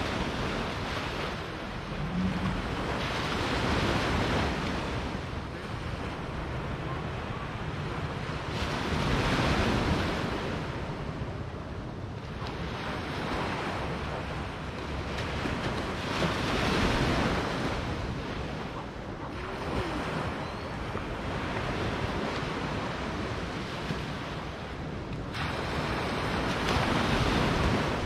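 Small ocean waves breaking and washing up onto a sandy beach, swelling and fading every few seconds.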